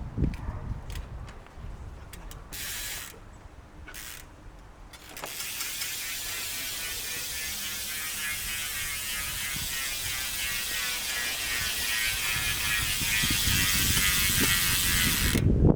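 Hope Pro 4 single-speed rear hub freewheeling, its 88-engagement-point pawl ratchet buzzing. Two short spins come a few seconds in, then a long continuous spin starts about five seconds in and grows louder before stopping abruptly near the end.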